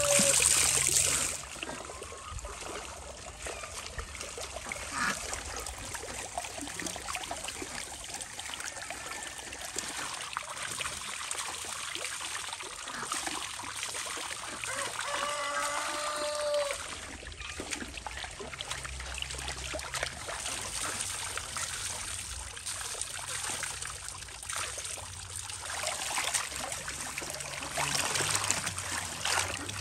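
Running water trickling and splashing steadily as fresh greens are rinsed in it, louder for the first second or so and then settling to a softer, even flow.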